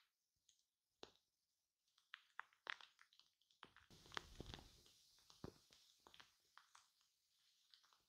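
Shaving cream foam on a microphone, giving quiet, irregular crackles and pops as it is handled, with a denser patch of crackling about four seconds in.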